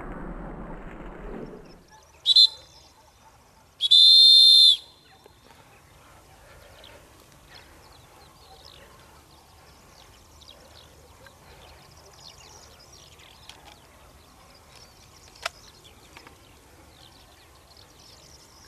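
Hunter's dog whistle blown twice, a short blast and then a longer one of about a second, shrill and steady in pitch: the call used to signal the hunting dogs.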